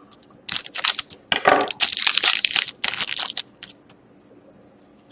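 A trading card pack's wrapper being torn open and crumpled: a run of loud crackling over about three seconds, then a few faint ticks.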